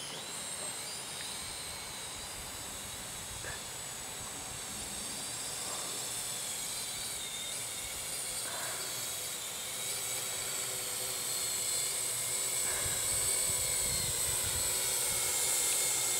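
Parrot drone's electric motors and propellers whining steadily in flight, growing gradually louder as the drone is flown back in to land.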